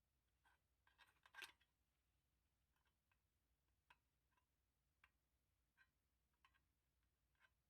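Faint scattered clicks and taps of hand tools and metal parts being handled while a microwave magnetron is taken apart. A short cluster of clicks comes about a second in, then single ticks about once a second.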